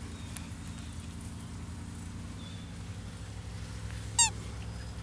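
A steady low outdoor rumble, with a single short, high-pitched squeak about four seconds in.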